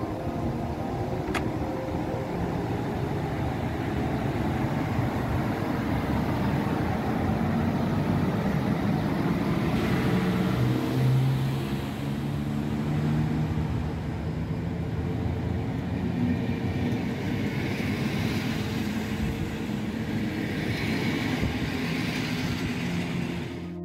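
PKP Intercity EP09 electric locomotive running past with a passenger train: a steady rumble and rush of wheels on rail. It is loudest as the locomotive goes by about ten seconds in, then the coaches roll past.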